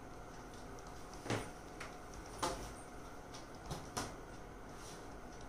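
Four light knocks and clicks of a board ruler and chalk against a chalkboard as a line is ruled and the ruler is shifted, over faint room hiss.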